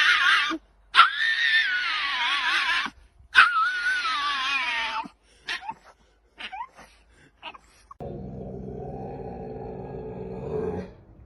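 A dog howling in three long, high, wavering calls that sink in pitch, followed by a few short yips. About eight seconds in comes a lower, steady growling sound from a dog.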